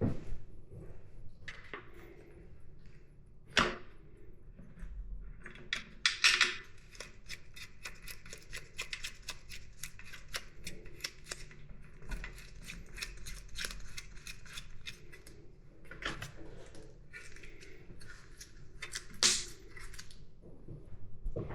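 Hand tools and metal parts at work during motorcycle assembly: long runs of rapid clicking, with a few louder sharp knocks of metal on metal.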